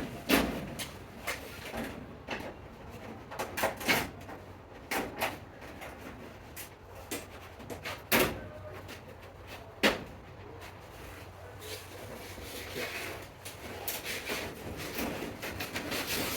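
Irregular knocks and clicks of greenhouse frame parts and panels being handled and fitted, loudest about eight and ten seconds in. From about twelve seconds in, a scraping rub of parts sliding against each other grows louder.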